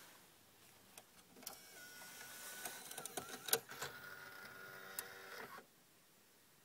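Alpine CDA-9815J car CD receiver's disc mechanism loading and spinning up a disc: a couple of clicks, then a steady motor whine with several sharper clicks, cutting off abruptly near the end. The unit has been failing to read discs and making sounds the owner says it shouldn't.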